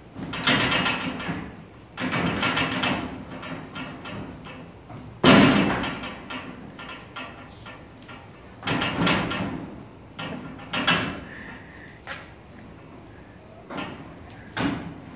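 Goats butting their horns against a metal pen fence: about seven sudden clangs with a rattle that rings on for a second or so, the loudest about five seconds in.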